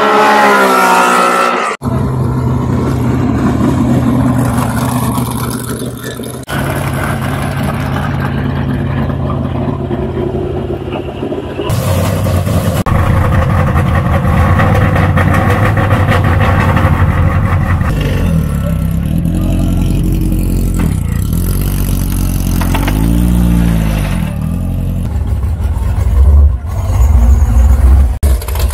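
Historic racing car engines idling and being revved: one revs up at the start, then engines run at a steady idle, with throttle blips rising and falling about two-thirds of the way through and loud sharp revs near the end. The sound changes abruptly a few times, as one engine gives way to another.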